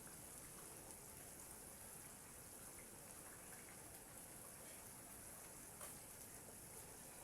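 Faint, steady bubbling of a tomato and vegetable sauce simmering in a pot, with a few small pops.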